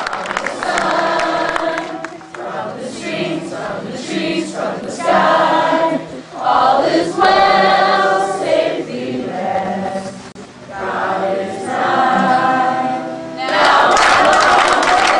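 A large group of children and adults singing together in phrases about a second long, with short breaks between them. Near the end the group breaks into louder shouting.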